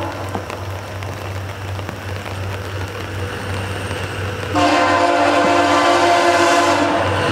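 VIA Rail F40PH-2 diesel locomotive approaching at speed, its engine droning steadily with the rumble of the train. About four and a half seconds in its air horn sounds one long blast lasting nearly three seconds.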